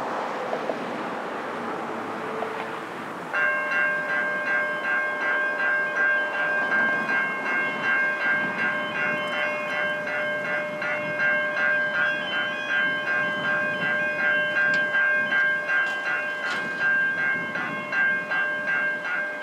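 A passing car gives a rushing noise, and then, about three seconds in, railway level-crossing warning bells start ringing in a fast, steady pulse. They go on ringing as the boom gates lower, a warning that a train is approaching.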